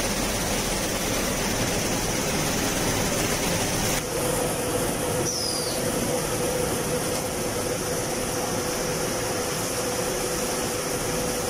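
Animal-feed pellet production line machinery running: a steady, dense mechanical noise with a steady hum underneath, shifting slightly about four seconds in.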